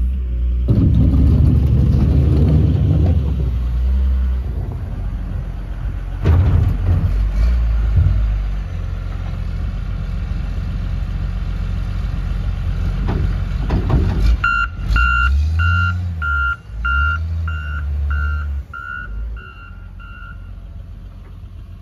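John Deere 544K wheel loader's diesel engine running, with a sharp knock about six seconds in. Past the middle its backup alarm beeps about twice a second for some six seconds as the loader reverses.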